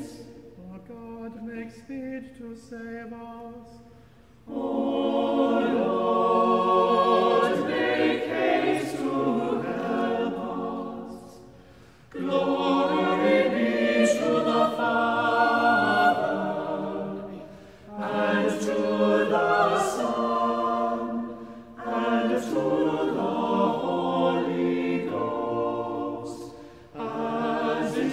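A small a cappella choir singing the chanted responses of Compline in phrases of four to six seconds, with short breaths between. The opening seconds are thinner and quieter, and the full choir comes in about four and a half seconds in.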